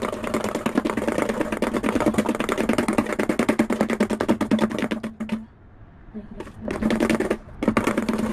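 Metal fork beating rapidly against a stainless steel bowl, hand-whipping dalgona coffee (instant coffee, sugar and hot water) that is not yet fluffy. A fast, even clatter of many strokes a second, stopping for about a second past the middle and again briefly near the end before resuming.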